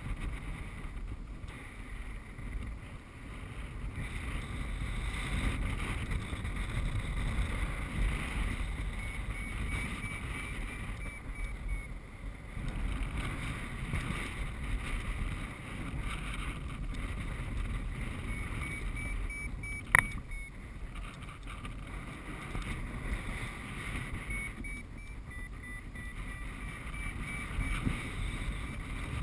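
Airflow rushing and buffeting over the microphone of a paraglider in flight, with a variometer beeping in short repeated high tones in several stretches, signalling climb in a thermal. A single sharp click about two-thirds of the way through.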